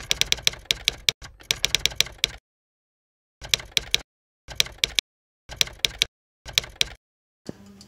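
Typewriter key-clack sound effect: rapid strikes in runs, a long run at first, then four short runs, each cut off by dead silence.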